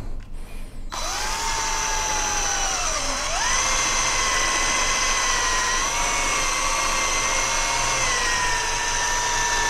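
Ingco cordless drill spinning a foam polishing pad on a scooter's painted plastic panel, buffing out hairline scratches. The motor whine starts about a second in, dips briefly in pitch around three seconds in, then runs on steadily with small shifts in pitch.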